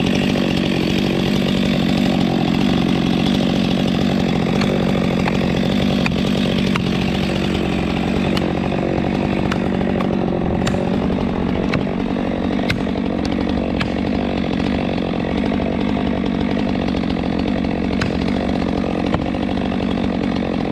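Chainsaw running steadily, cutting wood, with a few faint sharp ticks through it.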